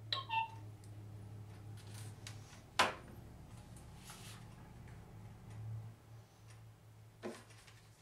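Video doorbell giving a quick descending run of electronic beeps as it resets, followed by a low steady hum. A sharp click comes about three seconds in and a softer one near the end.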